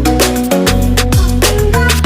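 Background music with a steady beat and deep sliding bass notes.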